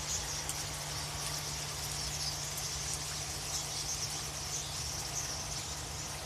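Steady high-pitched outdoor chorus of chirping, unbroken throughout, over a low steady hum.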